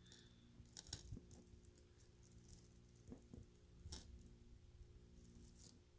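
Near silence with a few faint, sharp clicks and taps over a steady low hum.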